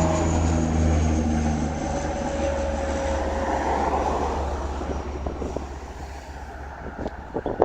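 Turboprop engines and propellers of a Bombardier Dash 8 Q300 droning as it climbs away after takeoff. The drone has a steady tone that sinks slightly in pitch and fades over the seconds. Near the end there are gusts of wind on the microphone.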